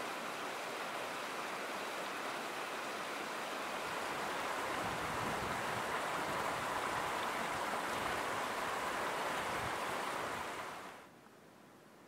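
Snowmelt mountain stream rushing over rocks in the spring thaw, a steady rush of water that grows a little louder about four seconds in and fades away near the end.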